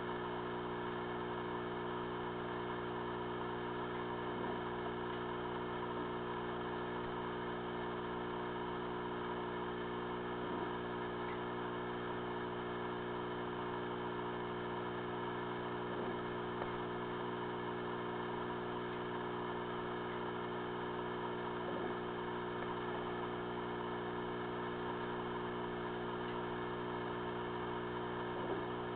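Steady electrical hum with many even overtones, unchanging throughout, with a faint soft tick every five or six seconds.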